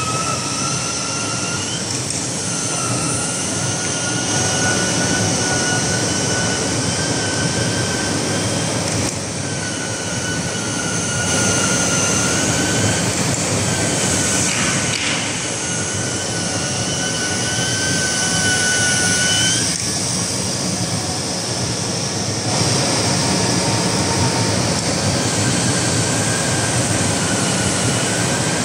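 CNC flatbed fabric cutting machine running: a steady rushing machine noise with high whines from the moving cutting head that start and stop every few seconds, some bending slightly in pitch.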